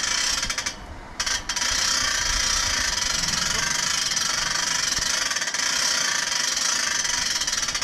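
Winch hauling up the steel lid of a steam distillation bin: a steady mechanical whirr that stops briefly about a second in, then runs on evenly and stops near the end.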